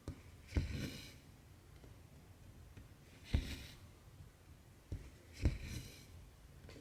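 Cross-stitching by hand: a needle pushed through taut Aida fabric with a small knock, then the cotton thread drawn through with a short swish, three times about every two to three seconds, with faint clicks in between.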